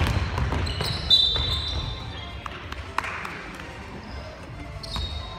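Basketball game sounds echoing in a gym: ball bounces, footsteps and sneakers on the hardwood floor, with a short high squeak about a second in and a few sharp knocks.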